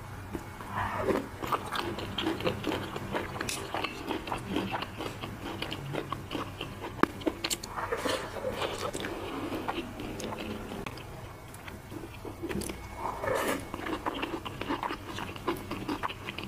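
Mouth sounds of biting and chewing crispy fried pork (guobaorou): crunching and wet chewing with many small clicks. The crunching comes thickest about a second in, again around eight seconds and around thirteen seconds.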